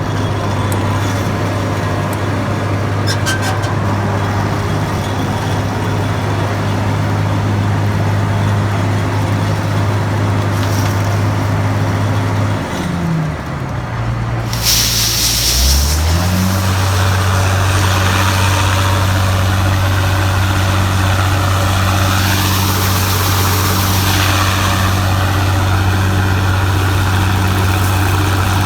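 Heavy diesel engine of harvest machinery running at a steady speed. About halfway through, its pitch dips and then climbs back to speed, and a burst of hissing comes in as it does.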